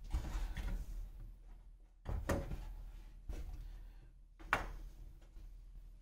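Polycarbonate plate being shifted and seated by hand inside a metal computer tower case: a few knocks and scrapes, the loudest about four and a half seconds in.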